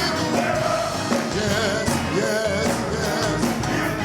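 Gospel choir singing with a live band of drums and bass.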